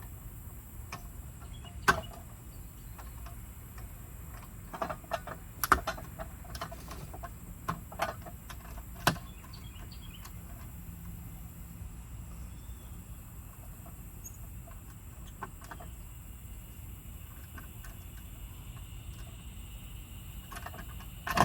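Scattered sharp clicks and light knocks of hand tools on electrical wiring, a few in a row between about two and nine seconds in, over a steady outdoor background with a faint high-pitched hiss.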